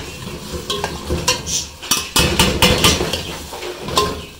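A metal spoon clinking and scraping against an aluminium pot as chopped tomatoes are tipped in and stirred into frying onions: a quick run of sharp clinks and knocks, thickest in the middle.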